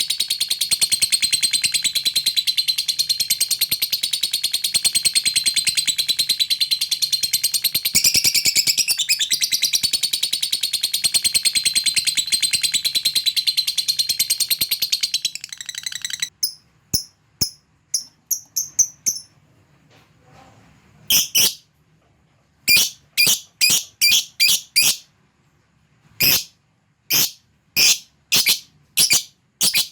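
Lovebird giving a long, unbroken, very fast high chattering trill (ngekek), which stops about halfway through. After it comes a string of short, sharp chirps in clusters with gaps. This is a rival-calling song of the kind used as bait to draw other lovebirds into singing.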